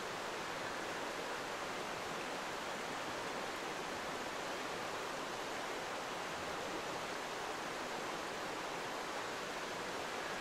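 Mountain stream rushing over rocks: a steady, even wash of water noise with no break.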